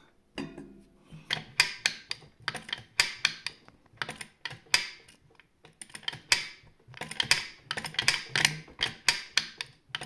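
Textima sewing machine's foot lifter latch being worked repeatedly: a run of sharp metal clicks and clacks, irregular and often in quick pairs, as the latch catches and releases.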